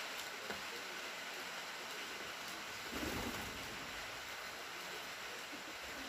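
Steady hiss of rain falling, with a brief low thump about three seconds in.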